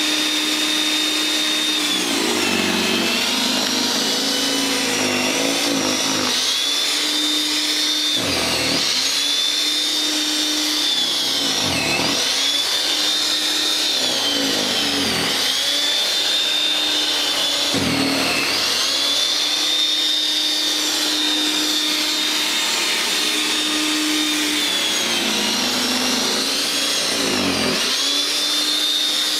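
WEN 5662 13.5-amp electric snow thrower's motor running with a steady high whine, its pitch dipping briefly about seven times and recovering as the auger takes in snow and the load comes and goes.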